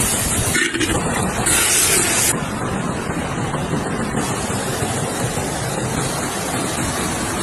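Steady rushing noise of river water and wind buffeting the microphone. Two short louder hisses come in the first two seconds.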